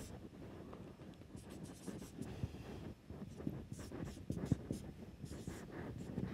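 Marker pen writing on a whiteboard: faint, short, irregular strokes as an equation is written out.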